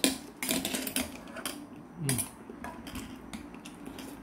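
Metal chopsticks and a spoon clicking and clinking against a stainless steel pot and a plate, with a sharp click at the very start, amid chewing while eating fish cakes.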